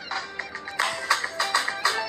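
Music with plucked, guitar-like notes over a steady beat, growing fuller about a second in.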